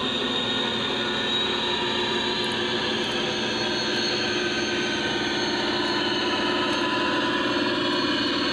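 Lionel three-rail CSX diesel model locomotive and its train running along the track with a steady mechanical hum and rumble, growing slightly louder near the end as the locomotive comes close.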